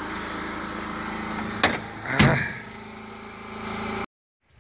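Homemade off-road vehicle's engine idling steadily. About a second and a half in there is a click, then a door slams shut, and the engine runs on more quietly until the sound cuts off suddenly near the end.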